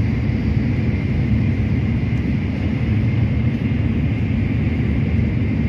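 Steady rumble and rush of a Tokaido Shinkansen bullet train running at speed, heard from inside the passenger cabin, with a faint steady high whine over it.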